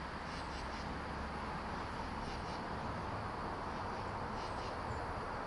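Steady hum of distant road traffic, with katydids calling in short pulsed bursts about every two seconds.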